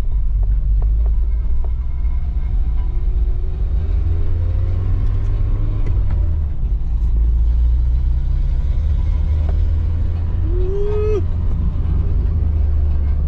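Interior sound of a Nissan 240SX with its KA24E 2.4-litre four-cylinder engine, driving on the road. A steady low engine-and-road rumble runs throughout, with the engine note rising and falling a few times. It carries a lingering noise that the driver suspects is the brakes rubbing.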